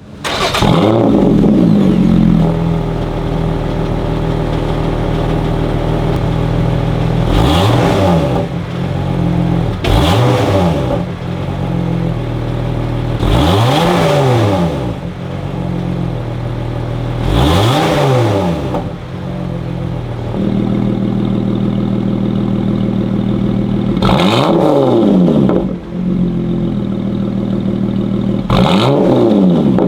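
Lotus Exige 380 Cup's supercharged 3.5-litre V6 through its titanium sports exhaust, idling and blipped about seven times, each rev rising and falling quickly back to idle. The first revs are with the exhaust valves closed and the later ones with them open, for a deeper sound.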